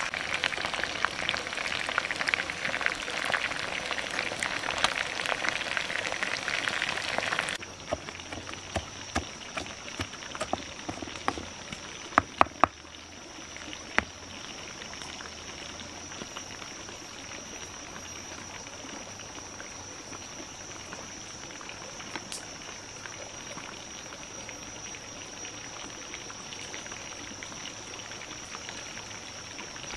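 Chicken wings frying in hot oil in a wok: a loud crackling sizzle that cuts off abruptly about seven seconds in. After it, a few sharp clicks and knocks from chili sauce being worked in a stone mortar, over a steady high-pitched tone.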